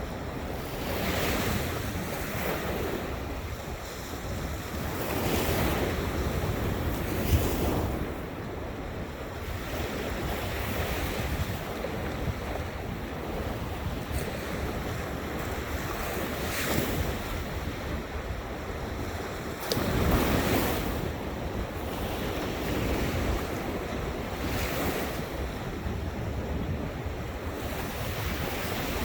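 Ocean surf, with waves breaking and washing in every few seconds, and wind rumbling on the microphone.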